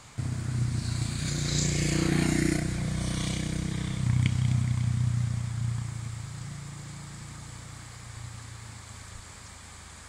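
A motor vehicle's engine running close by, its low engine note loudest in the first few seconds with a brief hiss of tyres about two seconds in. It then fades away as the vehicle passes and moves off.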